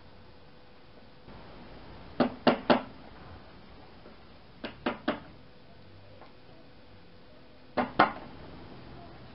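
Rubber mallet tapping the end of a 1.5-inch ABS pipe used as a drift, driving a new seal into a Champion 2-inch trash pump's housing. Three quick taps about two seconds in, three more near the middle, then two near the end.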